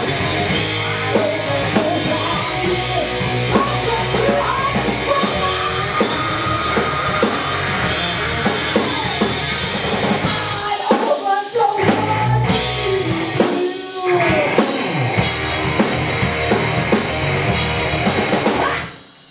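Live rock band with drum kit, bass guitar, electric guitar and a woman singing, playing the closing section of a song. About two-thirds through, the bass and drums drop out twice for a moment. The song then stops suddenly just before the end.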